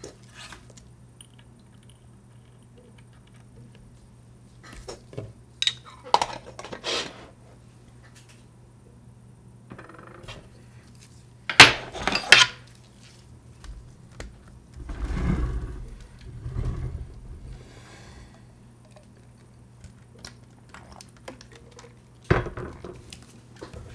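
Small metal hand tools being handled, picked up and set down on a workbench: scattered clinks and knocks, the sharpest about halfway through, followed by a few low thumps.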